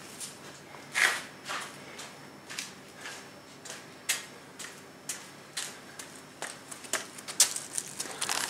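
Footsteps on a concrete floor, a scuff or knock every half second or so, with a louder one about a second in, coming closer; near the end a quick cluster of clicks and knocks as the camera is handled.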